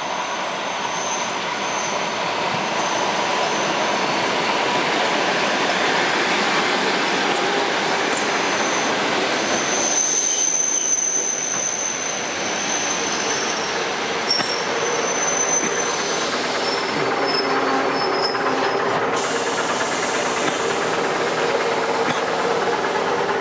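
ED4M electric multiple unit running past the platform: a steady rush of wheels on rail, with a thin high wheel squeal for several seconds near the middle and a steady hum in the second half.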